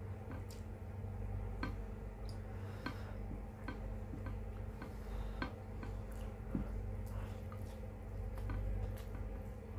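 Close-miked eating of paksiw na isda: chewing with short wet mouth clicks and smacks at irregular intervals, about one or two a second, over a steady low hum.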